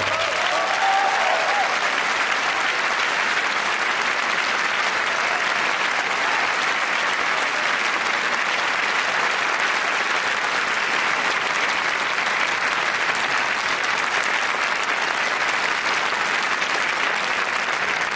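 Theatre audience applauding steadily after a ballet variation ends.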